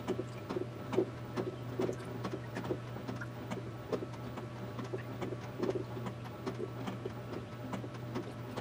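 LG top-load washing machine agitating a load of drapes in water, sped up: a steady motor hum under rapid, irregular sloshing and splashing, several knocks a second.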